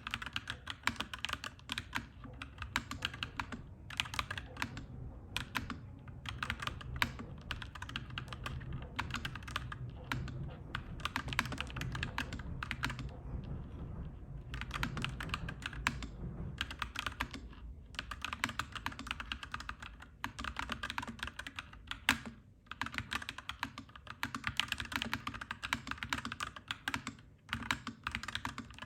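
Fast, continuous typing on a clacky mechanical keyboard, the keystrokes thinning out briefly about halfway through. A low rumble sits underneath for several seconds in the middle and then stops.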